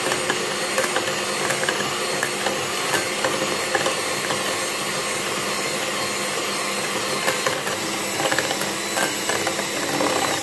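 Electric hand mixer running steadily at a constant speed, its wire beaters whipping instant coffee, sugar and warm water into a thick creamy foam in a glass bowl; an even motor whir with light ticks of the beaters against the glass.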